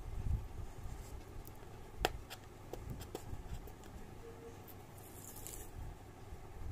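Hands handling a cardboard phone box, a fingernail picking at its seal sticker and peeling it off. A sharp click about two seconds in is the loudest sound, followed by a few lighter ticks, and a brief hiss about five seconds in as the sticker comes away.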